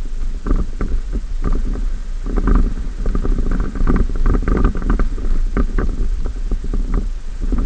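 Pickup truck driving slowly over rough, flat ground, picked up by a dashcam: a steady low rumble with frequent irregular knocks and rattles.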